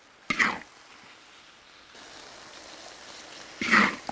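Metal wok spatula scraping the hot wok twice, once just after the start and once near the end, as stir-fried vegetables and sauce are scooped onto grilled fish in a metal tray. A faint steady sizzle runs between the scrapes.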